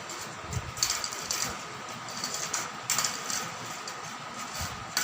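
A few sharp clicks and light rattles, spaced irregularly, from a pet parrot playing with its ball.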